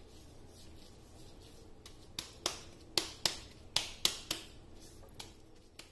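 Hands in thin plastic gloves patting a ball of spiced chicken mince flat between the palms to shape a chapli kabab. The pats begin about two seconds in and come as about ten sharp slaps, two or three a second.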